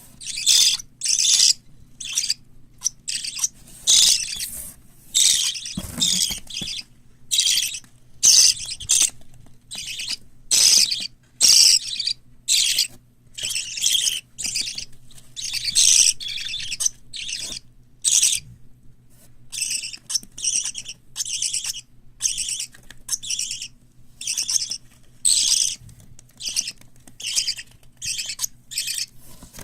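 Young parrot chicks (lovebirds, cockatiels and budgerigars) calling: a near-continuous string of short, raspy, high calls, one or two a second, with barely a pause between them.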